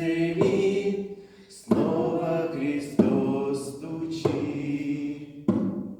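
Choir singing a slow hymn: about five held notes, each lasting a little over a second, with a brief breath near the start.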